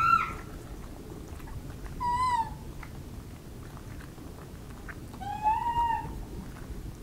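Japanese macaques giving coo calls: three clear, pitched calls, the first rising right at the start, a short one about two seconds in, and a longer one that rises and then holds about five seconds in, over a low steady rumble.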